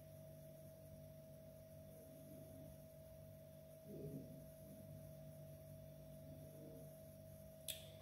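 Near silence: room tone with a faint steady hum, a brief soft sound about halfway through and a faint click just before the end.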